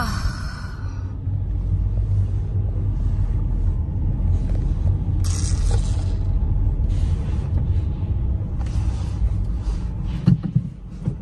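A steady low rumble with patches of hiss, and two sharp knocks about ten seconds in.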